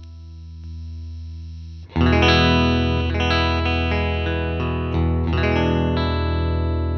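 Electric guitar played through a Fender Tone Master Princeton Reverb amp set at one of its output power settings: a chord rings at first, then a much louder chord is struck just before two seconds in, followed by more strummed chords, with another strong strum about five seconds in.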